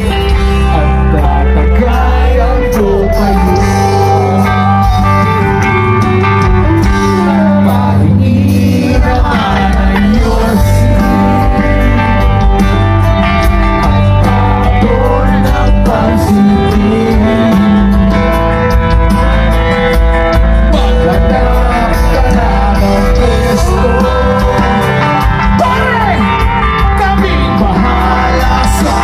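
Live rock band playing loudly, with the lead vocalist singing into a microphone over the band's steady beat.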